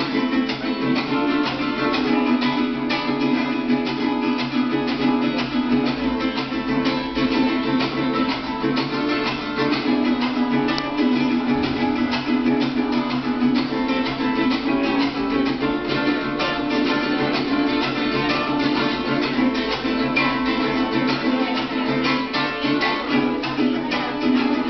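Live Venezuelan folk music with no singing: a guitar-like plucked string instrument played in a fast, even rhythm.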